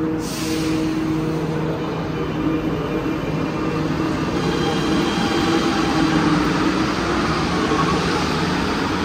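Alstom metro train running through the station: a steady rumble with electric motor whine, the higher whine coming in about halfway and the noise growing louder in the second half.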